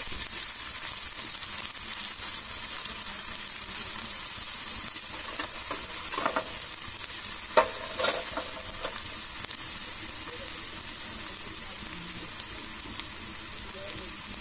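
Chopped onions sizzling in hot oil in a metal kadai: a steady, hissing fry. At the start they are stirred with a metal spatula, and a few brief knocks come about six to eight seconds in.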